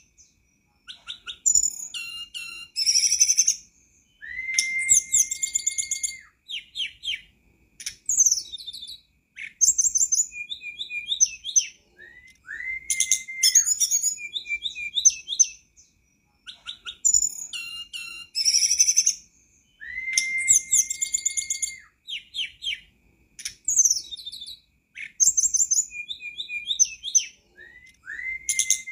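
Tledekan gunung song played as a masteran and lure track, repeating about every eight seconds. Each round has quick high chirps and twittering, then one long clear whistle that holds a single pitch for about a second and a half before dropping away.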